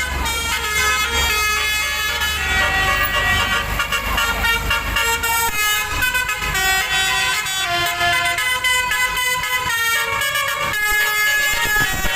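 Indonesian tour bus's "telolet" multi-tone musical air horn (Basuri type) playing a melody of stepping notes, with the bus's engine rumbling underneath for the first couple of seconds.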